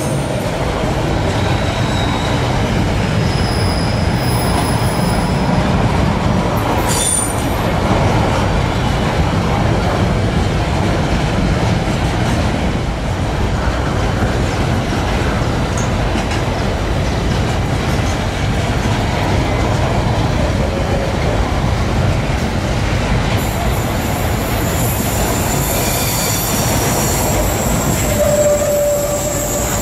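Freight train of hopper cars rolling past close by, a steady loud rumble and clatter of wheels on the rails. Short high-pitched wheel squeals come through a few seconds in, and again several times near the end.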